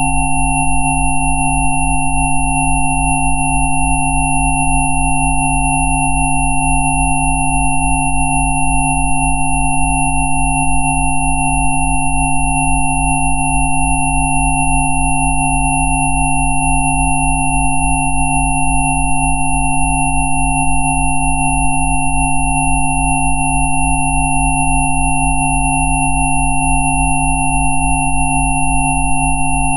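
Several steady electronic sine tones sounding together, from a low hum up to a high whistle, unchanging throughout. The lowest tone pulses in a fast, even beat. These are synthesized 'Rife frequency' tones.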